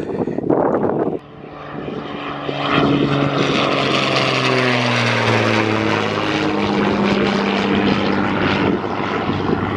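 Small propeller plane flying low overhead: its engine drone swells in the first few seconds, then drops steadily in pitch as it passes by.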